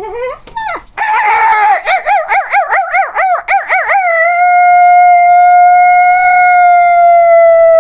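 A loud, high howl-like vocal call: a few short rising yelps, then about three seconds of quickly warbling pitch, then one long steady held note from about halfway through.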